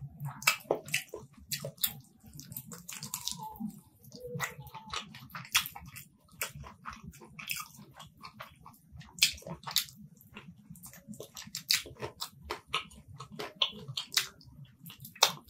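Close-miked eating by hand: wet, sticky clicks and smacks from fingers kneading rice with chicken curry, and from chewing mouthfuls, in a stream of short sounds at irregular intervals.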